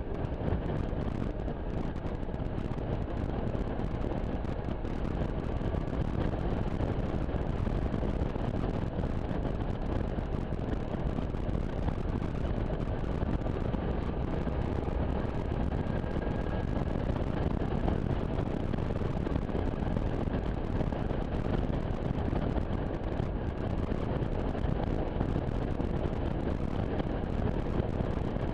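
Suzuki Burgman 650 maxi-scooter cruising steadily along a country road: a constant rush of wind and road noise over the microphone, with its parallel-twin engine running underneath.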